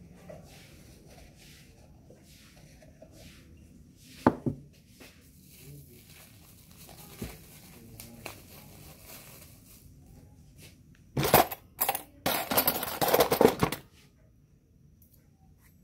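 Kitchen handling sounds while measuring flour for a cake batter: a sharp clink about four seconds in and small taps and scrapes, then a few seconds of loud rustling and crinkling near the end.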